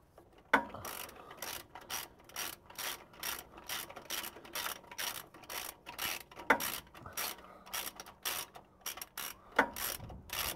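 Hand socket ratchet wrench clicking in quick, even strokes, about two to three a second, as a bolt is run in under the rear of a Holden VY ute. Sharper metal clacks come about half a second in, around six and a half seconds and near the end.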